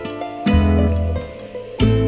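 Instrumental outro music: ringing pitched notes with deep bass hits, one about half a second in and another near the end.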